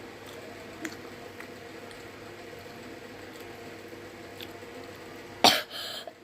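A person coughs near the end: one loud cough, then a shorter one right after. Under it runs a steady background hum with a few faint soft ticks.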